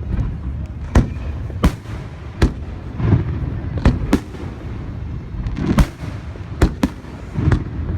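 Aerial fireworks shells bursting in quick succession, about ten sharp bangs at irregular intervals, some in close pairs, over a continuous low rumble of the display.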